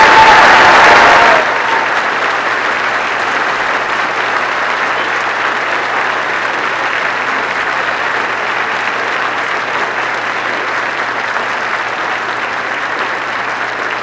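Large crowd applauding steadily. The applause is loudest at first, drops sharply in level about a second and a half in, and carries on evenly after that.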